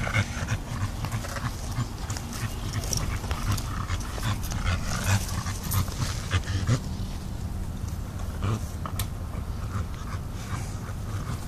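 A dog panting as it walks on a leash through grass, with many short, irregular rustles and clicks throughout.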